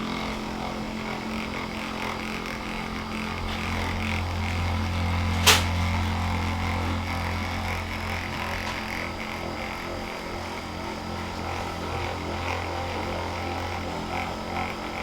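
Handheld electric massager running with a steady low hum as it is worked over the patient's muscles. A single sharp click sounds about five and a half seconds in.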